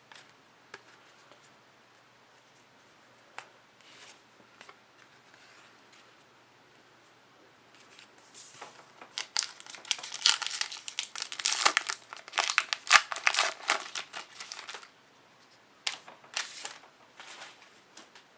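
Trading-card pack wrapper being torn open and crinkled, loudest for several seconds in the middle, with a few shorter crinkles near the end. A few faint taps come before it.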